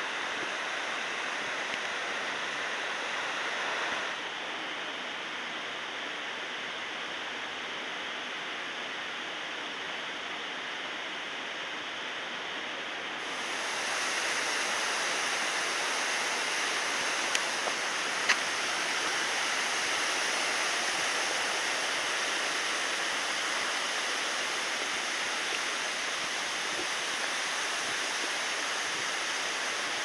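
Waterfall rushing steadily, an even wash of falling water. It dips a little about four seconds in and comes back louder and brighter around thirteen seconds, with a couple of faint clicks a few seconds later.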